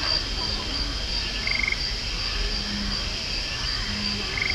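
Night chorus of frogs and insects around a lagoon: a high chirp repeats evenly about three times a second, with short trills twice and low croaks coming about every second and a half in the second half, over steady background noise.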